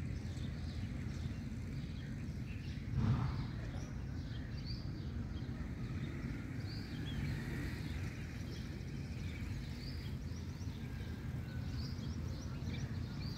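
Open-air ambience with a steady low background rumble and scattered short bird chirps. A brief louder noise about three seconds in.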